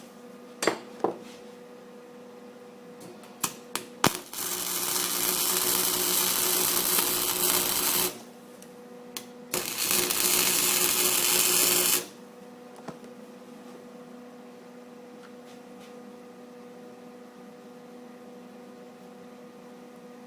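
Electric arc welder running in two welding bursts of about four and two and a half seconds, a steady crackling hiss, as a washer and nut are welded onto a broken-off bolt in a cast-iron exhaust manifold. A few sharp clicks come before, and the welder's steady hum carries on after the arc stops.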